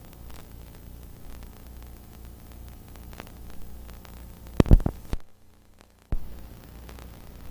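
Hiss and a low pulsing hum from blank videotape playing back. About four and a half seconds in comes a loud crackling thump; the sound then cuts out for about a second and comes back with a click.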